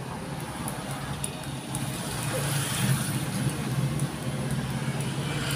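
A vehicle engine running, its hum swelling around the middle. Over it come faint light ticks as the number wheels of a small brass three-dial combination padlock are turned by hand.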